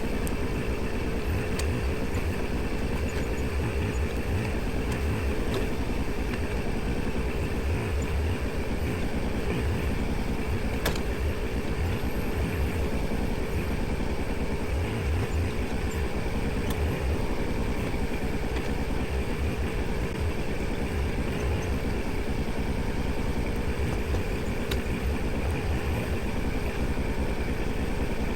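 Kubota compact tractor's diesel engine running steadily, with a few faint sharp knocks here and there.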